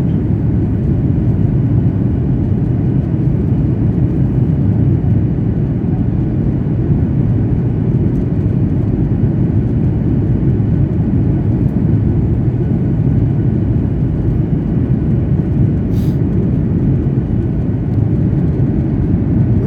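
Steady engine and airflow noise of an airliner, heard inside the passenger cabin during the approach to landing, with a brief click about sixteen seconds in.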